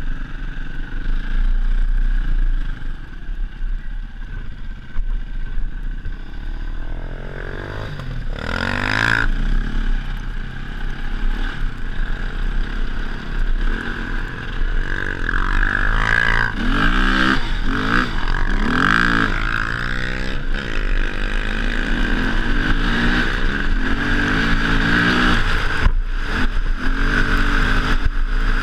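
KTM dirt bike engine under way, the revs rising and falling over and over as the rider works the throttle, with a few sharp knocks from the bike over the rough ground.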